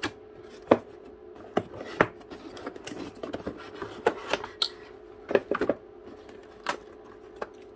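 Stiff cardboard inserts and flaps of a laptop box being lifted and folded back by hand: a scatter of sharp taps, clicks and scrapes, the loudest two in the first two seconds. A faint steady hum runs underneath.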